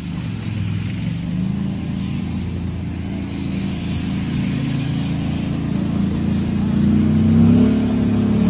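Tank engine running with a steady low hum, then revving up in pitch and loudness near the end as the throttle is opened.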